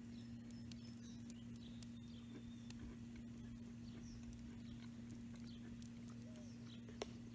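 Quiet outdoor background: a steady low hum with a few faint soft ticks and several faint, short high chirps, likely distant birds.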